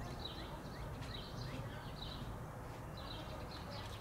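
Small birds chirping in short repeated bursts, several a second with brief pauses, over a faint low outdoor rumble.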